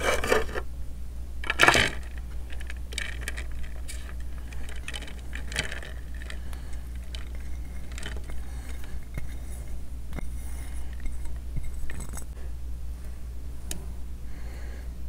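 Plates and dishes clinking and scraping as food is handled by hand, with a louder clatter at the start and again about two seconds in, then scattered small clicks and rustles as rice is tipped from one plate onto another.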